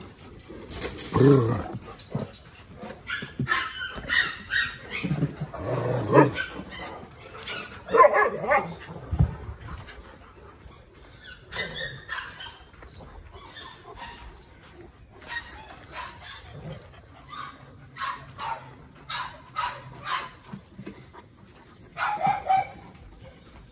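Dogs barking on and off, with a quick run of short barks near the end.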